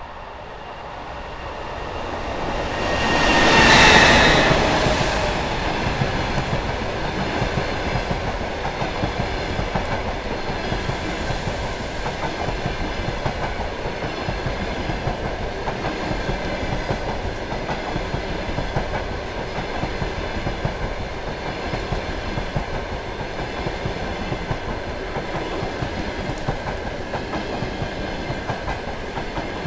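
EP20 electric locomotive passing at speed with a long passenger train. The sound swells to its loudest about four seconds in, with a brief high tone dropping in pitch as the locomotive goes by, then the coaches pass in a steady rush of wheel rumble and clickety-clack on the rail joints.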